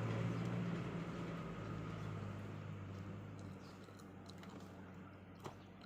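Low steady engine hum of a passing motor vehicle, fading away. A few faint clicks of eating come in over the second half, one sharper near the end.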